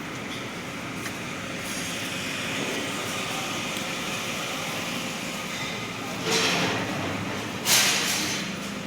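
Concrete mixer machine running with a steady mechanical rumble and hum, with two short, louder bursts of noise near the end.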